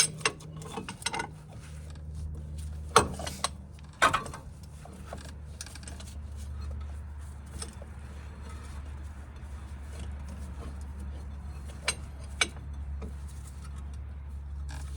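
A C-clamp being wound in against an old brake pad to push a front brake caliper piston back, with scattered metal clicks and clanks, the sharpest about 3, 4 and 12 seconds in. A steady low hum runs underneath.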